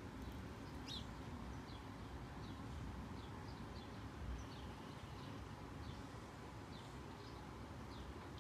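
Small birds, sparrow-like, giving short high chirps again and again, roughly one every half second to a second, some in quick pairs. A faint steady low background noise runs underneath.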